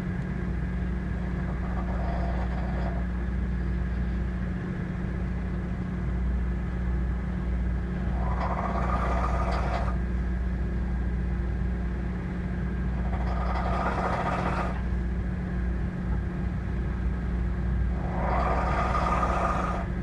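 A man snoring heavily in his sleep, a rasping snore about every five seconds, over a steady low hum.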